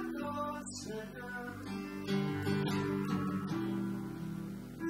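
Acoustic guitar strummed together with a Roland FP-50 digital piano, playing chords that change about once a second in an instrumental passage of a song.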